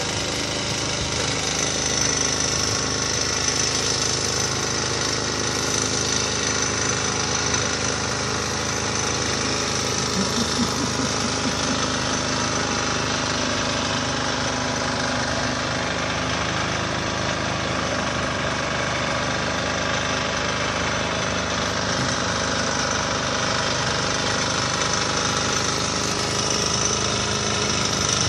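Road-works machinery running steadily: an engine with a continuous mechanical clatter, like a pneumatic breaker or compacting machine working the road.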